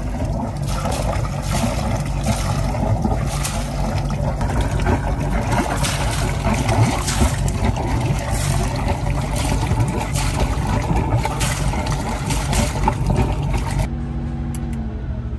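Yanmar GA50DS fishing boat's inboard diesel engine running, with water pouring steadily from its outlet in the hull side and splashing onto the sea. Near the end the splashing stops and a steadier engine hum remains.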